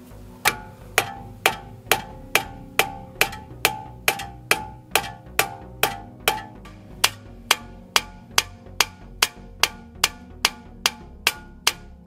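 Hammer blows on the steel steering knuckle of a Mercedes W204 C-Class, about two a second with a short metallic ring after each, with a brief pause just after the middle. The blows are meant to shock the tie rod end's tapered stud loose from the knuckle.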